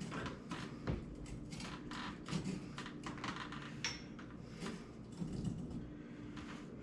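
Irregular light clicks and knocks of hand tools and fittings being worked on a copper water pipe during a leak repair, a few a second, with a brief squeak about four seconds in.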